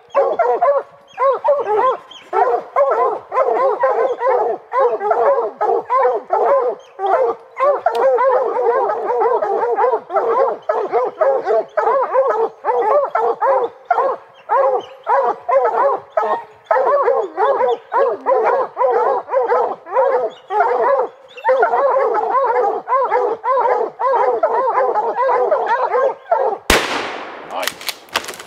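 A pack of bear hounds barks and bays nonstop, many dogs overlapping, at a black bear they have treed. Near the end a single gunshot cracks out.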